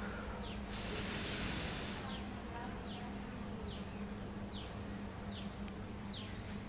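A steady low buzz like a flying insect's, with short falling chirps repeated about once a second from about two seconds in. A high hiss runs through the first two seconds and then stops.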